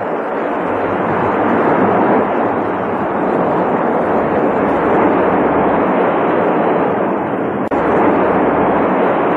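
Steady rushing of sea water breaking against a ship's bow as it moves through the water, as a cartoon sound effect. It cuts out for an instant near the end.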